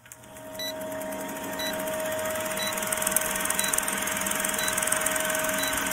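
Vintage film projector sound effect: a fast, steady mechanical clatter with a steady hum, fading in over the first two seconds, with a short high blip about once a second marking the countdown numbers.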